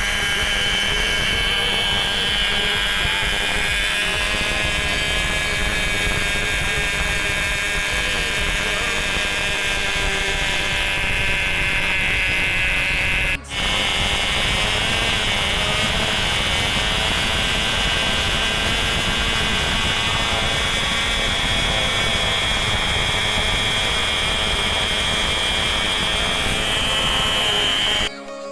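Nitro glow engine of a radio-controlled MiG-15 model plane running at high speed with a steady, high-pitched whine. It briefly drops out about halfway through, then carries on at the same pitch.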